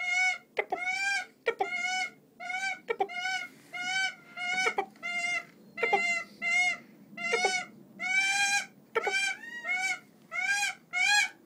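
Female Siberian goshawk (Accipiter gentilis buteoides) calling over and over, a steady series of short, shrill wailing notes, each rising and falling slightly, about three every two seconds, with a few brief sharp notes between them. This is her breeding-season wail: she is close to ready to mate.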